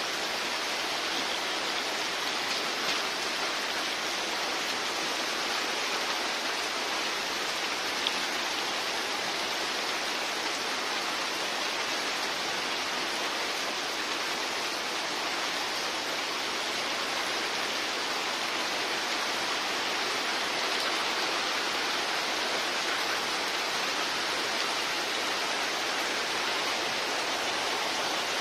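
Heavy rain falling steadily onto river water and moored boats: a continuous, even hiss of rain.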